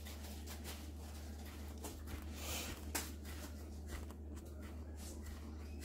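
Faint scraping and light taps of a flat-sided measuring cup pressing a cookie-crumb crust into a springform pan, over a steady low hum.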